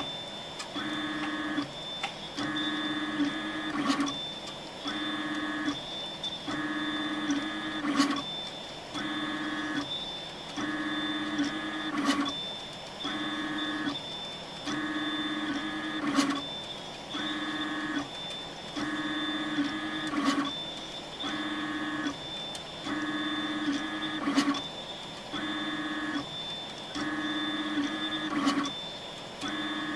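Prusa Mendel RepRap 3D printer's stepper motors whining in short repeated moves, about a second each with brief pauses, as the print head traces the walls of a 0.5 mm thin-walled calibration box. A sharp tick comes about every four seconds, with a faint steady high tone underneath.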